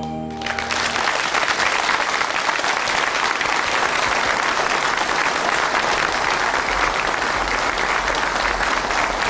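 Audience applauding, breaking in about half a second in as the band's last held chord dies away.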